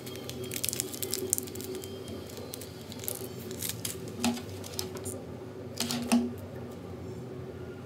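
Crinkling and crackling of a small clear plastic bag of pearl beads being handled, followed by a few separate light clicks and taps.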